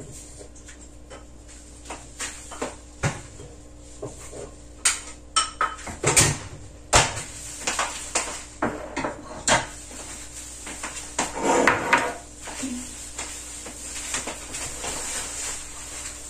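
Kitchen dishes and utensils being handled: a string of clinks, knocks and set-down clatters, densest and loudest about five to seven seconds in, with a short scrape near twelve seconds.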